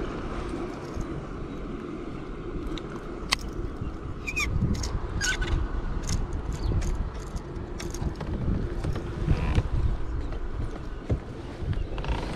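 Wind rumbling on the microphone over water lapping at a kayak, with scattered light clicks and two brief high chirps.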